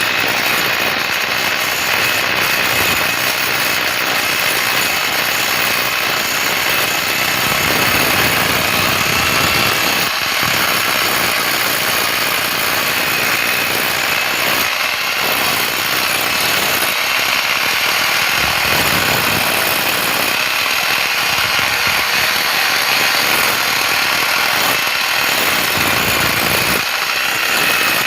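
Loud, steady mechanical noise of a motor running without a break.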